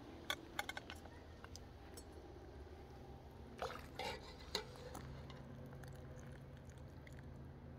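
A long-handled metal skimmer clinking and scraping against the kazan and the serving platter as boiled meat is lifted out. There are a few light knocks just after the start and a louder cluster about four seconds in, over a low steady background.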